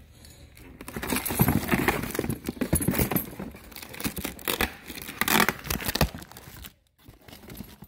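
A cardboard box and its packaging being torn open and rummaged through by hand: irregular ripping, crinkling and rustling with small knocks, stopping briefly near the end.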